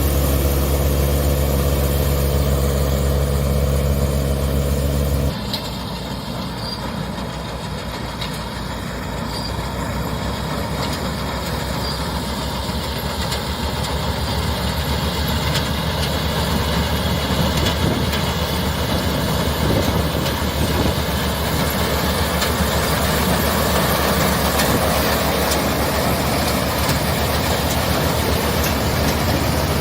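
Massey Ferguson 9500 tractor's diesel engine running steadily with a smooth, even tone. About five seconds in, the sound switches abruptly to a rougher, noisier engine sound with a rapid pulse, which continues.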